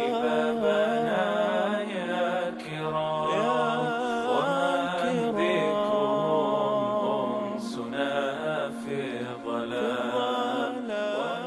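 Unaccompanied vocal chanting: a held low drone beneath a voice singing a wavering, ornamented melody.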